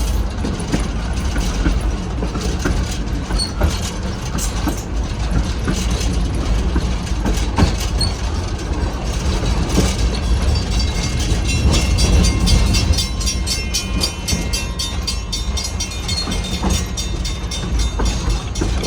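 A train rolling along the track, heard from aboard: a steady low rumble with the clatter of wheels over the rails. The clicking turns fast and dense a little past halfway.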